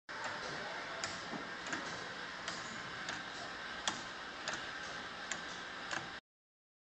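The mechanism of a kinetic tile sculpture clicking at a fairly even pace, roughly every 0.6 to 0.8 seconds, over a steady hiss and faint hum.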